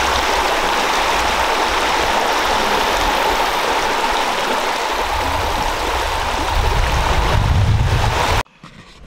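A shallow river rushing over rocky shoals: a steady wash of water noise. It cuts off suddenly near the end.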